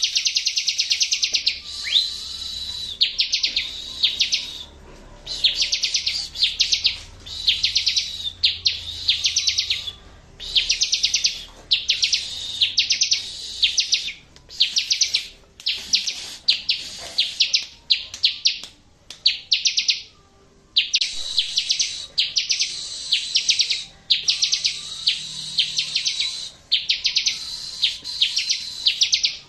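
Bar-winged prinia (ciblek) song: fast, high-pitched trills in short bursts of half a second to a second, repeated over and over with brief gaps, with a thin steady whistle under many of them.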